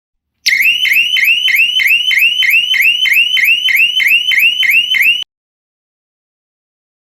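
Electronic siren of a wireless panic alarm sounding a fast, repeating rising sweep about three times a second, which cuts off suddenly about five seconds in.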